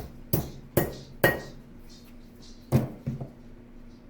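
Metal hardware clanking: three sharp clinks about half a second apart, the third ringing briefly, then two more knocks in quick succession a second and a half later.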